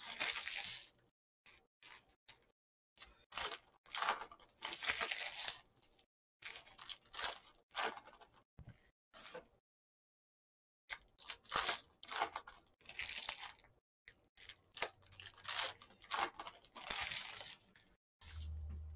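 Foil wrapper of a Panini football card pack crinkling and tearing as it is pulled open, then the cards being handled and flicked through, in irregular rustling bursts with a short pause near the middle.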